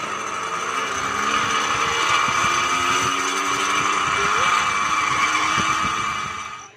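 Zip line trolley's pulley wheels running along the steel cable: a steady whir that grows louder as the ride goes on, then cuts off suddenly at the end.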